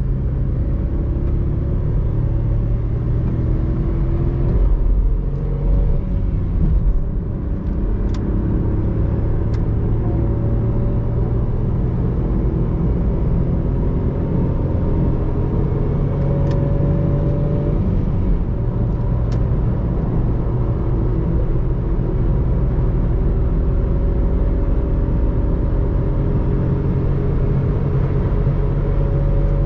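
Opel Corsa C's 1.0-litre three-cylinder petrol engine heard from inside the cabin at high revs under hard acceleration, shifting up through the gears as speed builds. Road and wind noise run beneath it.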